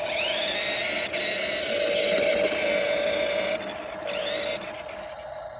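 Electric drive motor and gearbox of a remote-control toy garbage truck whining as it drives. The whine rises as the truck speeds up, holds steady for about three and a half seconds and stops, then a second short rising whine follows about a second later.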